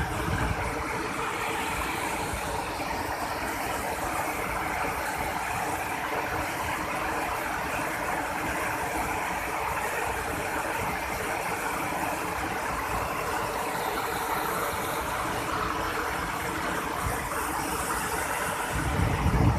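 Steady rushing roar of a waterfall, with a low buffeting rumble swelling up near the end.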